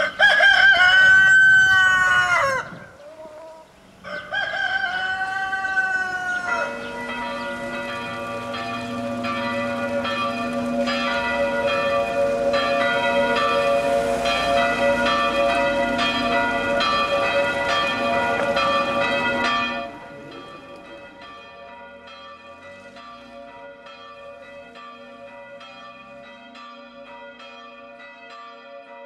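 A rooster crows twice, then several church bells ring in a steady peal, loud at first. About twenty seconds in the bells drop to a fainter, duller ring.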